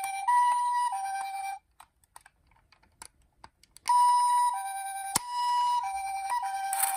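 Toy ambulance's electronic two-tone siren, a high-low 'pee-poh' switching about every 0.6 seconds. It cuts off about one and a half seconds in, leaving about two seconds of small clicks, then starts again, with a sharp click a second later.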